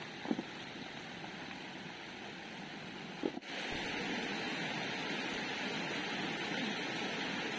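Steady rushing of a shallow stream flowing over stones, which becomes a little louder after an abrupt cut about three and a half seconds in.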